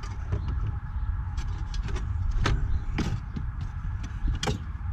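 Sharp knocks and scrapes as an airbox heat shield is worked into place in a car's engine bay, with the three loudest knocks in the second half, over a steady low rumble.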